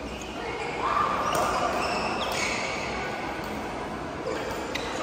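Badminton play in a large sports hall: sharp racket hits on a shuttlecock and short squeaks of shoes on the court floor, over background voices.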